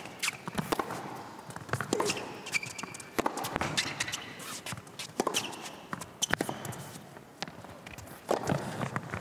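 Tennis rally on an indoor hard court: a string of sharp racket hits and ball bounces, roughly one every second, with the players' footsteps between them.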